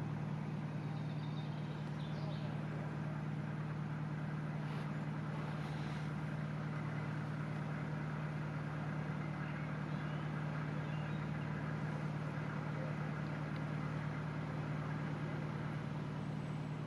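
Narrowboat diesel engine running steadily at cruising speed, a constant low drone.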